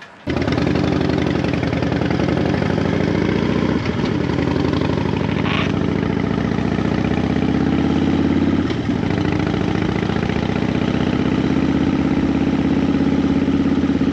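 Harley-Davidson Fat Bob's V-twin engine running under way, starting abruptly just after the beginning. Its pitch wavers, breaks briefly twice, about four and nine seconds in, then climbs steadily toward the end.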